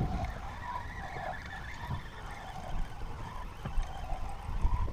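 Spinning reel being cranked as a small pike is reeled in, a whirring whine that wavers up and down with the turns of the handle, with a few light clicks; low wind and water noise underneath.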